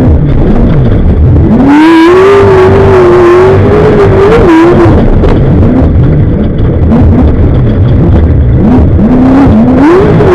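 Off-road race vehicle's engine, loud and under hard throttle. Its pitch climbs about a second and a half in and holds high for a few seconds, then drops to a lower rumble, and near the end it climbs again in short rising steps.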